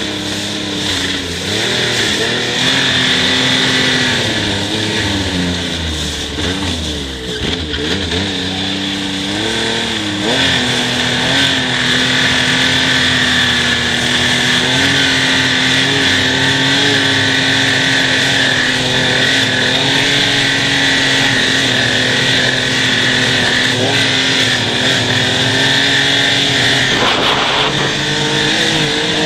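Yamaha Nytro snowmobile's four-stroke three-cylinder engine running under way, its pitch rising and falling with the throttle for the first ten seconds or so, then holding nearly steady at cruising speed, over a steady hiss.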